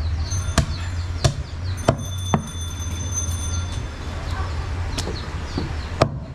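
Butcher's cleaver chopping goat meat on a wooden log block: four sharp chops in the first two and a half seconds, a pause, then one more near the end.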